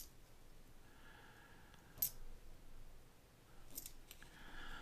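Faint clicks of copper wheat pennies being handled and set down: one sharp clink about two seconds in and a small cluster of clicks near four seconds, with soft rustling between.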